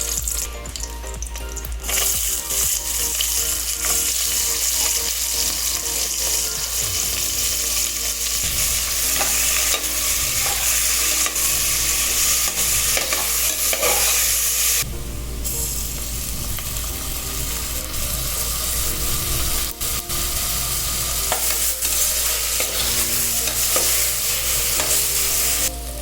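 Food frying in hot fat in a pan, a steady sizzle with a spoon stirring and scraping through it. There is a brief break in the sizzle about halfway through.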